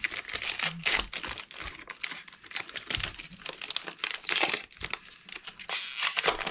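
Foil wrapper of a 2022 Donruss Elite football value pack being torn open and crinkled by hand, a run of irregular crackles and rips.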